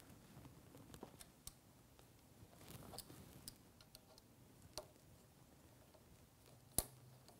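Near silence with faint, scattered small metal clicks and taps as a stainless bolt, nut and clamp are fitted by hand on a motorcycle crash bar, with one sharper click near the end.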